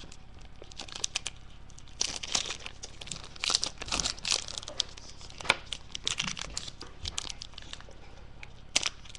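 Foil wrapper of a Panini Select trading-card pack being torn open and crinkled by hand, in short irregular bursts of crackling with quieter gaps between.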